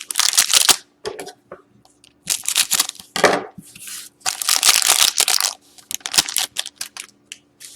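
Wrapper of a hockey card pack being torn open and crinkled by hand, in several separate rustling bursts.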